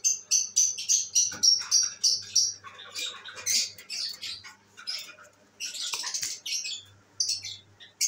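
Lovebirds chirping: a fast run of sharp, high chirps, about six a second, for the first two and a half seconds, then irregular chirps and squawks.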